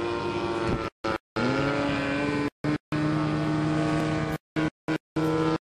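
Small radio-controlled model motor running steadily at a held pitch, the pitch dipping and climbing back about a second in. The sound cuts out completely several times for fractions of a second.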